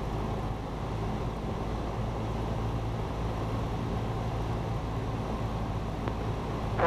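Cessna Skyhawk's piston engine and propeller droning steadily in cruise, heard from inside the cabin. A short burst sounds at the very end before the sound cuts off abruptly.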